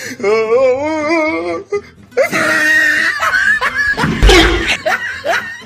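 Comic meme soundtrack: a wavering, sung voice for about a second and a half, then loud laughter and shrieking, peaking about four seconds in.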